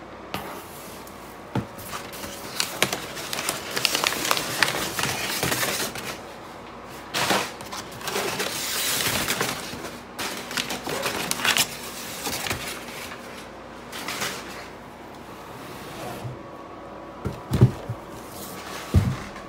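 Crumpled kraft-paper packing rustling and crinkling as it is handled and pulled about inside a cardboard shipping box, in several spells of a few seconds each. There are a few sharp knocks of items against the box near the end.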